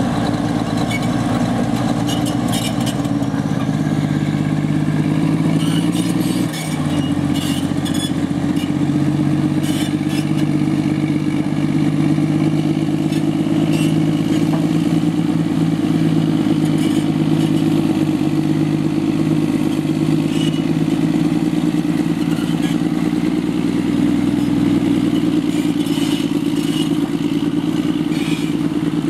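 Caterpillar D8H crawler dozer's six-cylinder diesel engine running steadily under load as the machine tracks and pushes gravel, with clanks and clicks from the steel tracks. The engine note briefly dips about six and a half seconds in.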